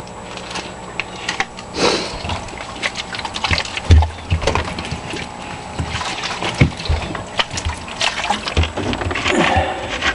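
Water being poured and sloshing as an egg incubator's water is topped up, among irregular knocks and clatter of handling, with a heavier thump about four seconds in.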